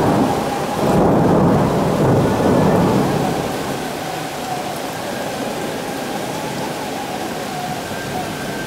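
Thunder rumbling over a heavy summer downpour. The rumble is loudest in the first three seconds, then dies away into the steady noise of the rain.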